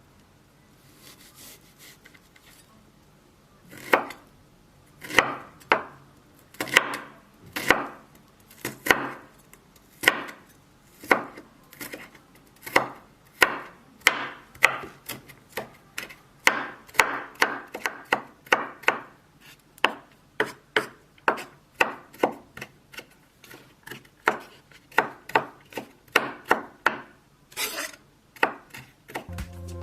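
Knife chopping on a wooden cutting board: sharp, uneven strokes about one to two a second, starting about four seconds in.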